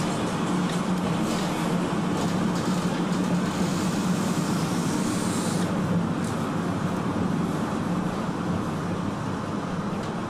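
Ex-Melbourne W2-class streetcar running along its track: steady rolling noise with a low hum.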